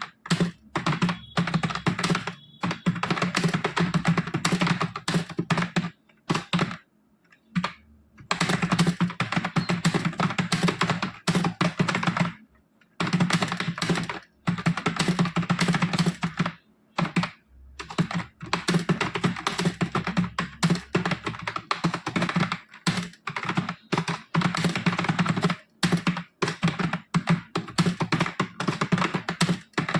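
Fast touch-typing on a computer keyboard: a dense, rapid stream of key clicks, broken by brief pauses about seven, twelve and seventeen seconds in.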